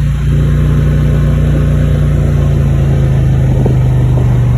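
Four-wheeler (ATV) engine running steadily under way, its pitch dipping slightly near the end.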